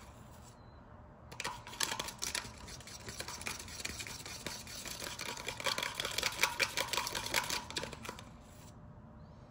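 Metal spoon stirring a watery cobalt oxide and water mix in a small plastic cup: a quick run of clicks and scrapes as the spoon knocks and rubs against the cup. It starts about a second in and stops near the end.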